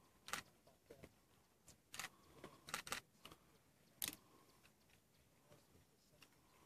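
Near silence broken by about five short, sharp clicks within the first four seconds.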